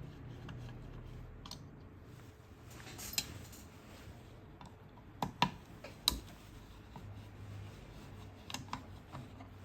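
Quiet bench work on an airsoft gun's top rail: scattered sharp clicks and taps of a tool on small screws and parts as the rail's screws are undone, a cluster of them about halfway through and a few more near the end, over a low steady hum.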